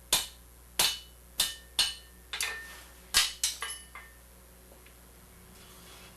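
Hand hammer striking steel rods over the corner of an anvil, about eight sharp, unevenly spaced blows with a brief metallic ring, stopping about four seconds in. The blows notch chalked marks into the 3/8 inch vine rods to show where to cut them.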